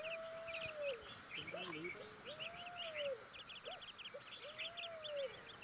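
Forest birdsong: a chorus of quick, high chirps throughout, with a lower whistled call that rises and falls, heard three times.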